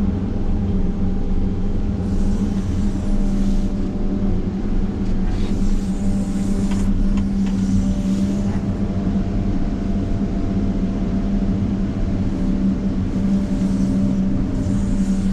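Cat 930 wheel loader's diesel engine running steadily, an even low drone that does not rise or fall.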